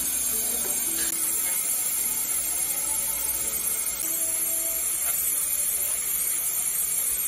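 Steady high-pitched hiss of dental equipment running, with a few faint, brief voice-like tones underneath.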